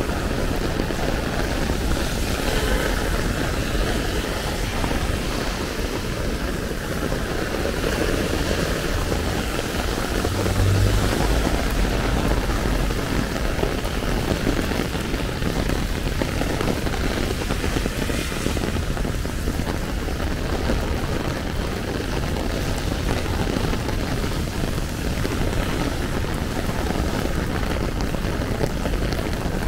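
Heavy rain falling on an umbrella, a steady dense hiss, over the low rumble of city street traffic, which swells briefly about ten seconds in.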